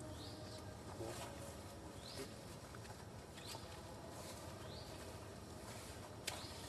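Faint outdoor ambience with a short, high animal call that rises and then levels off, repeated about every second and a half. Near the end there are a couple of sharp clicks.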